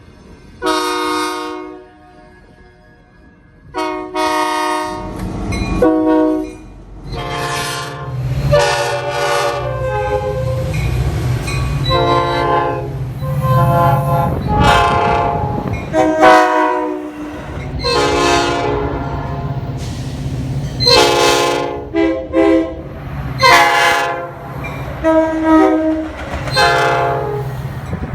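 Locomotive air horns sounding a long run of blasts, mostly one to two seconds each, about fifteen in all. After two early separate blasts they come thick and fast, with a steady low rumble of the train underneath from about seven seconds in.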